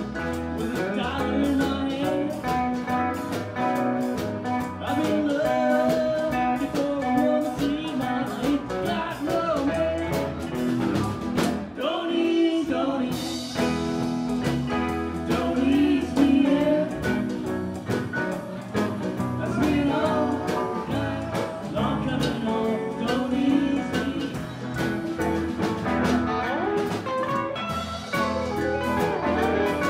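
A live band playing a song with electric guitar and a steady drum beat, with singing over it.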